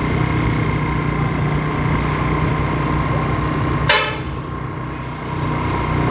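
A bus engine running close by while a Basuri telolet horn holds a steady tone, with one short sharp burst about four seconds in.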